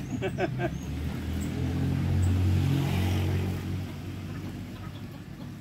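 A motor vehicle passing by: a low engine hum that grows louder to a peak about two to three seconds in, then fades away.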